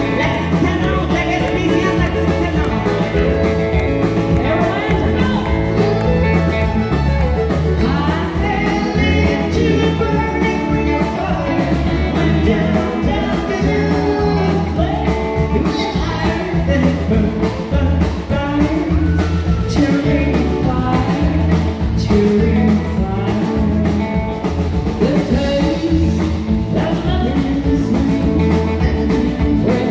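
Live country band through a stage PA: two women singing lead over drums, electric guitar and fiddle, with a steady driving beat.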